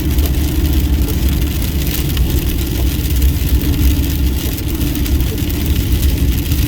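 Pickup truck driving on the highway, heard from inside the cab: a steady low rumble of engine and tyres with a constant hum and an even hiss over it.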